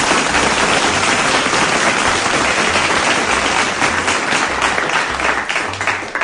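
Recorded crowd applause played in as a sound effect, steady and dense, fading out near the end, with a faint low beat underneath.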